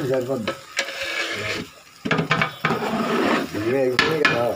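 A long metal spatula scraping and stirring thick biryani rice against the side of a large aluminium pot, heard in several separate scrapes, with people's voices talking over it.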